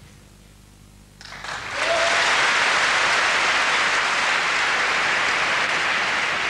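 Arena crowd applauding a point just won in a tennis match. The clapping starts about a second in, swells over half a second, then holds loud and steady.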